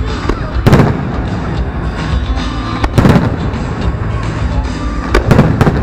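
Fireworks shells bursting in loud booms, one about a second in, another around three seconds, and a quick cluster of bangs near the end, with music playing underneath.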